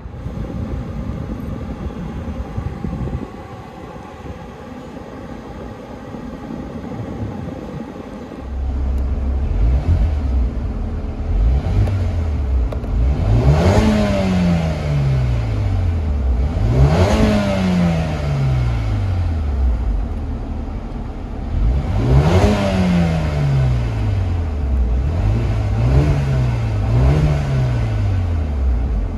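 The 2021 Mercedes-AMG A35's turbocharged four-cylinder engine is revved in park, heard from inside the cabin. From about eight seconds in it idles, then is revved three times up to around 6,400 rpm, each time rising and then falling back slowly. Near the end come quicker, shorter blips of the throttle.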